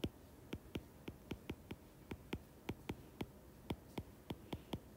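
Stylus tapping on an iPad's glass screen during handwriting: a quick, uneven run of light clicks, about four or five a second.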